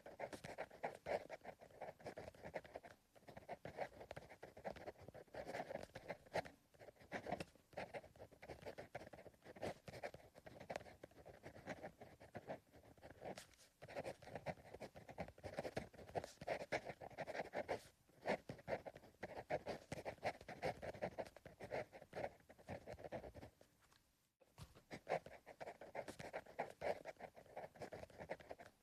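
Pencil writing on paper: close, continuous scratching of the lead in quick irregular strokes, with brief pauses between runs of writing, the longest about three-quarters of the way through.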